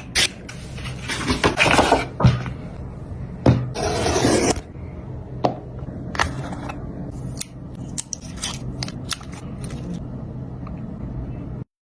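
Unboxing an Apple Watch Ultra: the cardboard box and plastic packaging are handled, with irregular scrapes and rustles and sharp clicks over a low steady hum.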